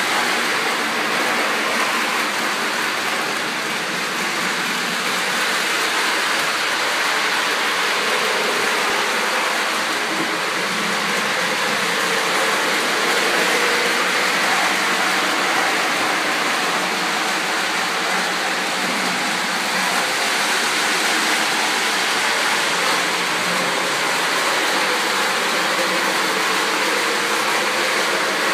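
Lionel O-scale model train rolling along its track, a steady, even rushing rumble of wheels and motor.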